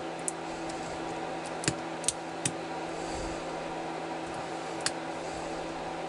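Several faint, sharp clicks of a lock pick working the pin stack inside a Kasp padlock, about five scattered over the few seconds, over a steady background hum.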